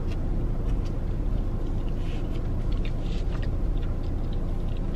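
Steady low hum of a parked car running, heard from inside the cabin, with faint chewing of bread in the middle.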